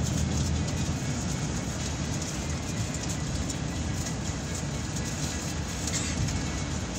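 Inside a moving city bus: steady engine rumble and road noise, with a few faint clicks and rattles.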